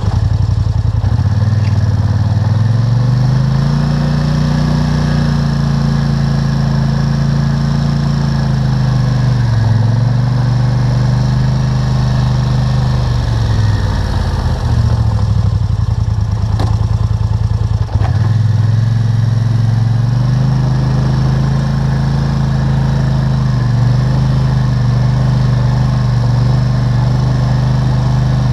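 ATV engine running while the four-wheeler is driven, its pitch climbing early on, then dropping off and picking back up a few times as the rider eases off and accelerates.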